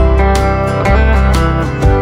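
Background music led by a plucked guitar over a steady bass line.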